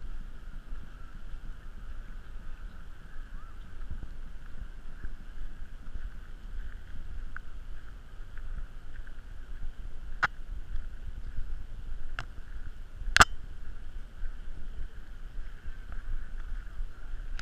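Wind and movement noise on a GoPro carried on a walk: a steady low rumble with a faint steady whine above it. A few sharp clicks come through, the loudest about 13 seconds in.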